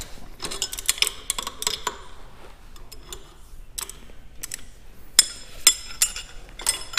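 Metal hand tools and small metal parts clinking and tapping against each other in a run of irregular small clicks. A few sharper clinks with a brief metallic ring come about five to six seconds in.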